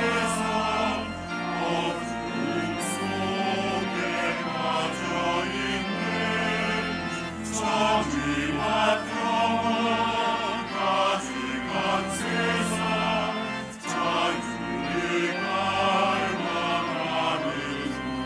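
Choir singing a sacred song in several voice parts, over sustained low bass notes that change every second or two.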